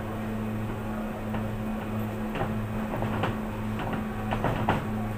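Steady low machine hum, with light irregular taps and clicks from about two seconds in as dough balls are pressed flat by hand in a metal bun tray.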